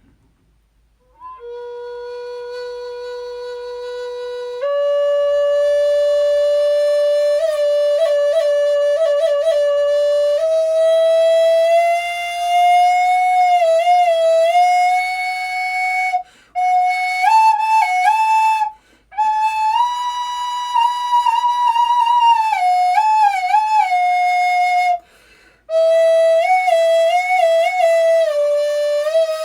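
Native American flute, a High Spirits earth-tone flute in the key of B tuned to 432 Hz, played solo. It opens on a long held low note, then steps up into a slow melody decorated with quick grace-note flutters. The melody breaks off briefly three times.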